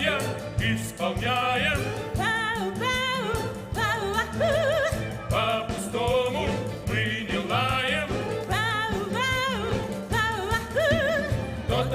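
Song from a stage musical: singing voices with wide vibrato on held notes over an instrumental backing track with a steady beat.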